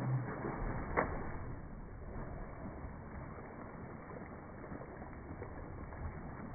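Slowed-down pool water splashing and sloshing around two people in a swimming pool, with one sharp slap about a second in.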